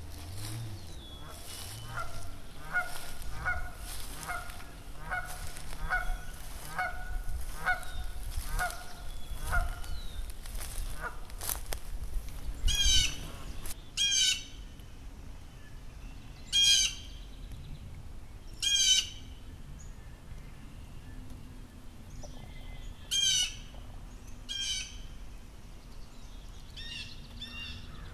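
Wild birds calling: a run of about a dozen evenly spaced calls, a little under two a second, then, after a short gap, a handful of sharper, higher-pitched calls a few seconds apart.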